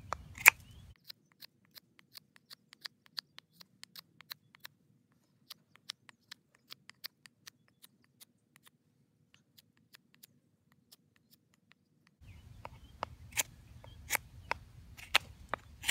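Fixed-blade knife carving a wooden fork blank: short, irregular clicks and scrapes as the blade takes shavings off the back, a few strokes a second, louder and closer together in the last few seconds.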